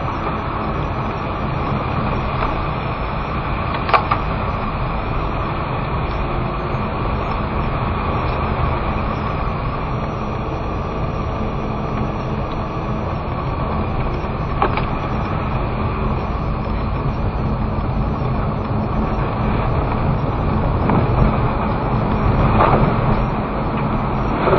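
Steady engine and road noise inside a moving car, with a sharp click about four seconds in and another about a second before the midpoint.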